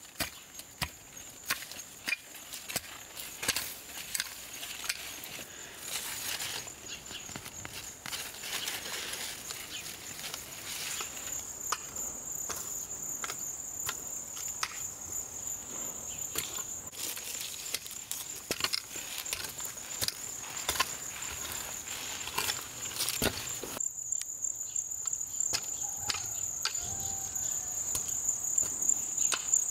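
Weeding by hand in dry garden soil: a small hoe chopping and scraping the earth in irregular short strikes, with weeds being pulled, over a steady high-pitched insect trill. Near the end the chopping stops and only the insect trill remains.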